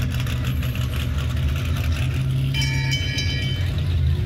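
A loud, steady low rumble like a vehicle engine running, with a brief set of high ringing tones a little past the middle.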